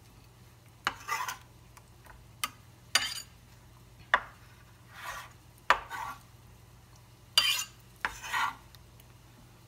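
Chef's knife chopping tomato on a wooden cutting board: about six sharp knocks of the blade on the wood at uneven intervals, each followed by a short scrape as the blade slides the pieces across the board.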